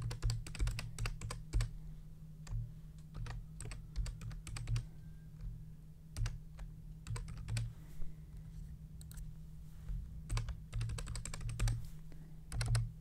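Typing on a computer keyboard: irregular runs of keystroke clicks with short pauses between bursts, over a faint steady low hum.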